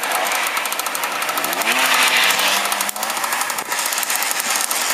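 Several vintage motocross motorcycle engines running with a rapid, rattly exhaust note, one revving up with a rising pitch about a second and a half in.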